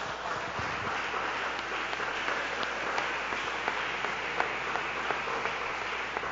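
Congregation applauding: a steady spread of many hands clapping that rises right after the preacher's line and fades as his voice returns.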